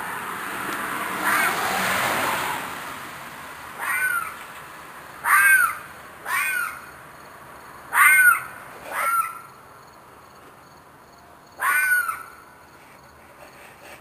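An animal giving six short screeching calls spaced one to three seconds apart, each falling in pitch; the recordist suspects a fox or coyote in distress. Before the first call, a swell of rushing noise lasts for about two and a half seconds.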